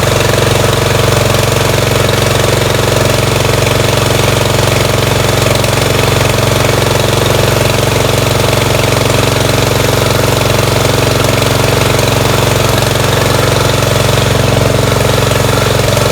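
Briggs & Stratton Vanguard 14 HP engine on a Snapper riding mower running steadily at an even speed.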